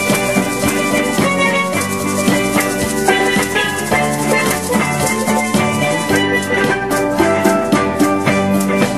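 Live band music: a pitched melody over a steady percussion beat.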